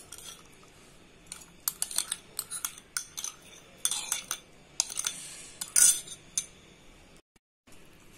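Steel spoon clinking and scraping against glass bowls in irregular clinks, as salad dressing is scraped into a chickpea salad and stirred in.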